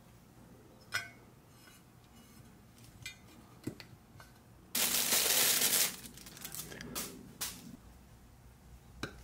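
Workshop handling noises: scattered small clicks and clinks of parts and tools being picked up and set down, with a loud hiss lasting about a second in the middle.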